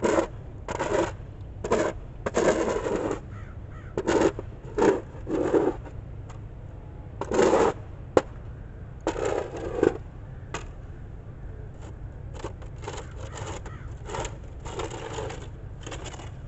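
Snow shovel scraping and pushing snow along a concrete sidewalk in short, uneven strokes, about a dozen scrapes, fainter in the second half, with one sharp knock about eight seconds in.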